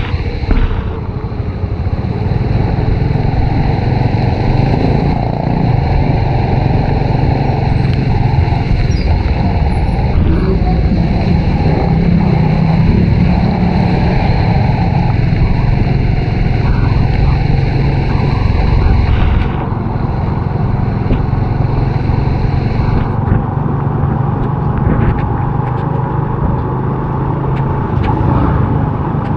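Honda RSX 110 underbone motorcycle's single-cylinder four-stroke engine running while riding, under a steady rush of wind and road noise. The engine note and the noise drop just under two-thirds of the way in.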